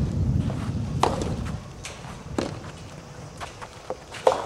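Soft tennis rubber balls struck by rackets in a doubles rally: sharp pocks a second or two apart, the last near the end the loudest. A low rumble fades out after about a second and a half.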